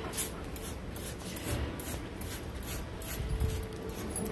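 Deshedding brush raked through a dog's thick double coat in quick repeated scratchy strokes, about two a second.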